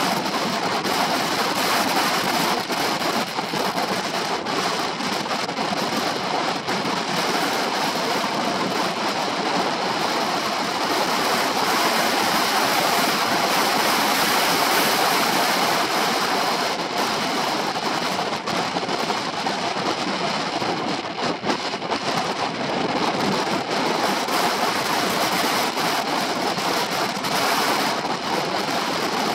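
Steady wind noise on the microphone of a shoulder-mounted camera aboard a moving Honda PCX 125 scooter, a rushing hiss that buries most of the engine and road sound.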